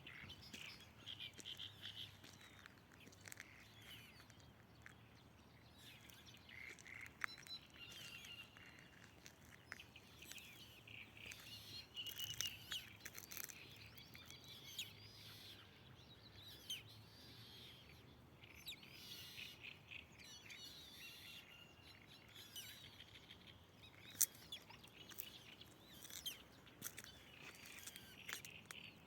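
Faint chirping and twittering of small birds, many short calls overlapping, over a low background hum, with a few brief sharp clicks.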